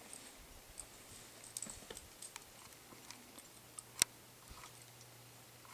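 Faint scattered clicks and light metallic clinks of climbing gear, carabiners and rope being handled, with one sharper click about four seconds in.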